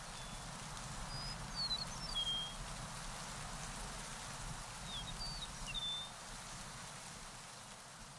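A small bird singing two short phrases of high whistled notes and quick glides, about four seconds apart, over a steady background hiss.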